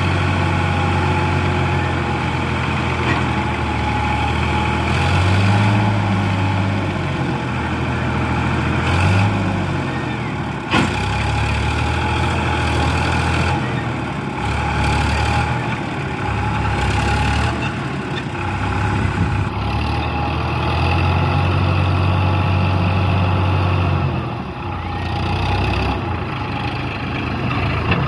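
Diesel engines of a backhoe loader and tractors running, their revs rising and falling every few seconds as they pull against each other, with a single sharp click about eleven seconds in.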